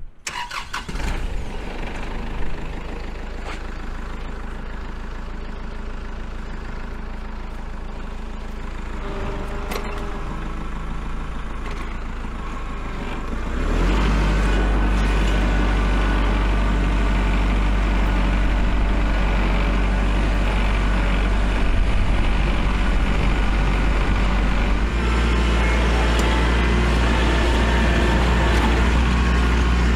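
Kubota L4701 tractor's diesel engine running steadily while pushing snow, a low continuous hum that gets louder about halfway through and a little louder again near the end.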